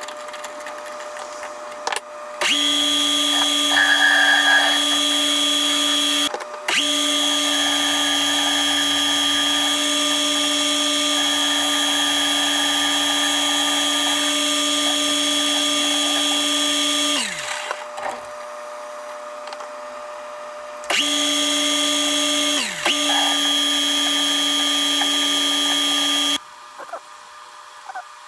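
Metal lathe running with a steady motor whine, its spindle turning a steel workpiece. It runs in three stretches that start and stop abruptly; after the second the whine falls as the spindle spins down.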